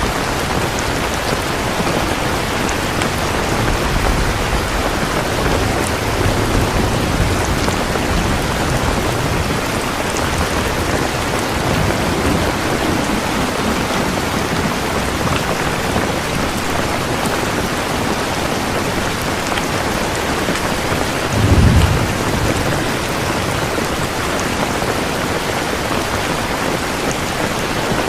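Steady heavy rain falling on a surface, an even hiss with a few low rumbles underneath, the strongest a short one about three-quarters of the way through.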